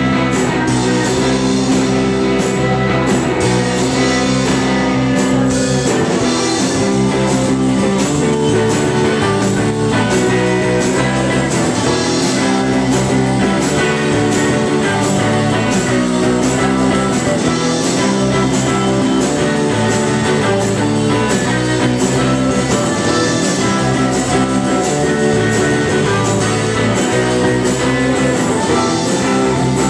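Live rock band playing loud and steady: electric bass, electric guitar and a drum kit keeping a regular beat.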